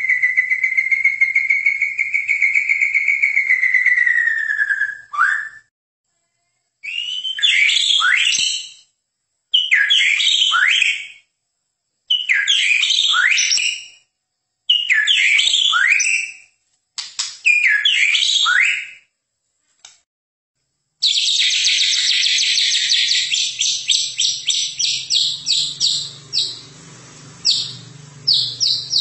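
White-rumped shama (Medan murai batu) singing: a long wavering trill at first, then six short phrases of falling whistles with silences between, then a fast run of repeated high notes that slows and fades before starting again near the end.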